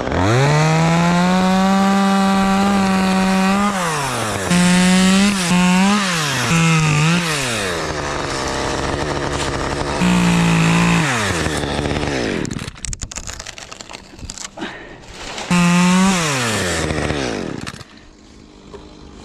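Two-stroke chainsaw revved to full throttle and cutting wood, in several bursts: one long run of about three and a half seconds, a few quick blips, then two shorter runs, each falling back toward idle between them.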